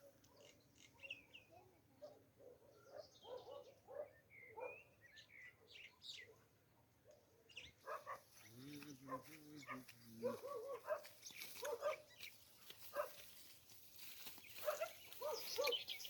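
Animal calls: many short chirps, and one longer pitched call from about eight to ten seconds in.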